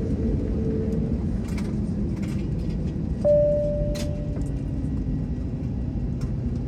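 Steady low cabin rumble of an Airbus A321neo on the ground just after landing, with a few light clicks. A little over three seconds in, a single short steady tone sounds for about a second.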